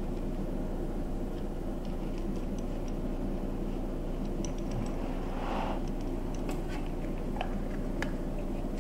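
Small clicks of metal and plastic parts and a brief rustle of cloth as a gravity-feed paint spray gun and its cup are wiped out with a shop towel, over a steady low hum.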